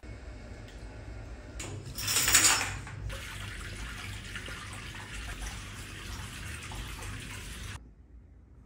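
Water running from a bathtub's mixer tap into a partly filled tub, a steady rush of water. It is louder for about a second around two seconds in and cuts off suddenly near the end.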